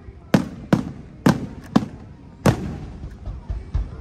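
Aerial firework shells bursting: about six sharp bangs in the first two and a half seconds, then a quicker run of lighter thuds near the end.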